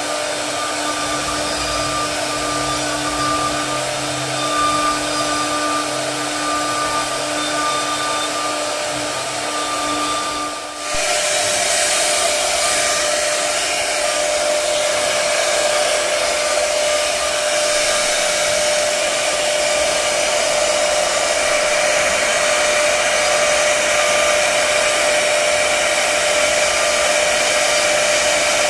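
CNC router spindle running at a steady whine while it cuts into a wooden pillar turning on the machine's rotary axis. About eleven seconds in the sound changes abruptly to a louder, different steady tone with more cutting hiss.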